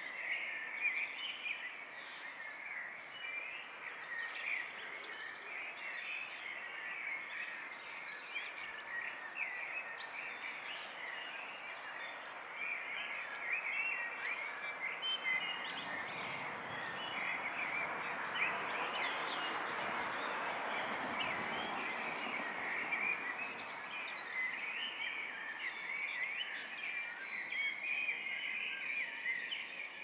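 Dawn chorus of many small birds chirping and singing, overlapping all the way through. In the middle a broad rushing noise swells up for several seconds and fades away.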